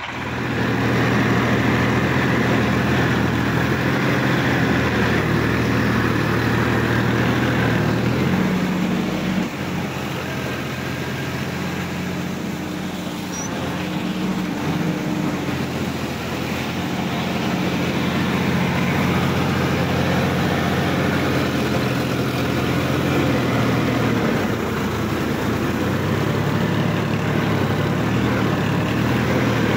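Sonalika DI-50 RX tractor's diesel engine running steadily while working wet, muddy ground. Its note shifts about eight seconds in and shifts back later on.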